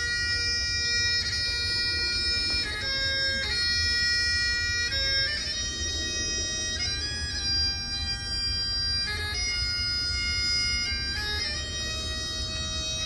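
Great Highland bagpipes playing a slow lament, each melody note held a second or more.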